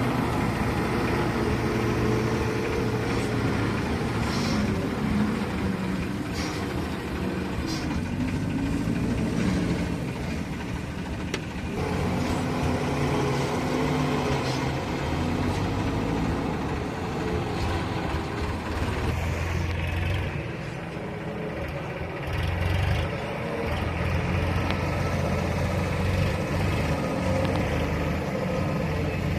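Diesel engine of a JCB backhoe loader running under varying load as it works, its pitch shifting up and down over a steady low drone, with an occasional faint clank.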